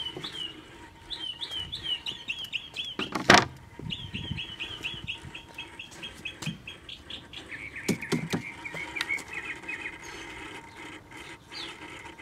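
Songbirds chirping in series of quick downward-slurred notes and a rapid trill, with a loud knock about three seconds in and a pair of knocks near eight seconds as the console's wooden cabinet is handled.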